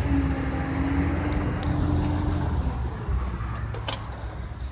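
MAN M2000 concrete mixer truck's diesel engine idling with a low, steady rumble, quiet, "like a baby that is sleeping". A sharp click comes near the end.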